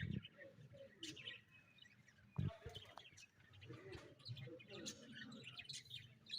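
Budgerigars chirping and warbling in quick, scattered calls, with a single dull thump about two and a half seconds in.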